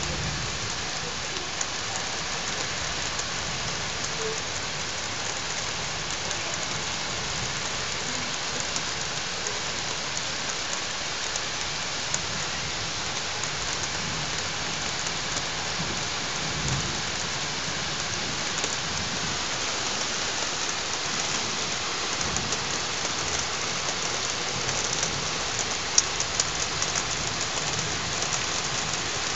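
Heavy rain falling steadily during a thunderstorm, with a low rumble of thunder about halfway through. Sharp ticks of drops hitting close by grow more frequent near the end.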